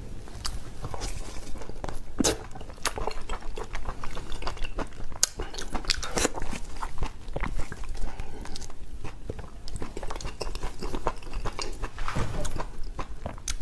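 Close wet chewing, smacking and slurping of a person eating soft boiled pork dripping with chili oil, heard as many irregular short mouth clicks.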